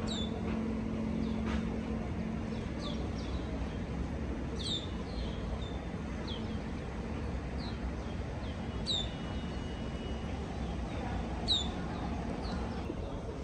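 Small birds chirping: short, sharp, downward-sliding chirps at irregular intervals of about half a second to two seconds, over a steady low rumble of background noise.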